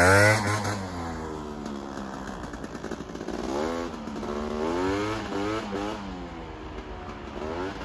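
Piaggio Zip scooter fitted with a swapped-in 125cc Gilera Runner engine, revving as it rides away. Its pitch falls and rises several times with the throttle, and it is loudest at the start.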